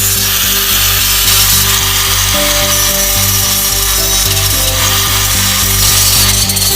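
Background music with a steady beat and held notes, over a continuous rasping tool noise.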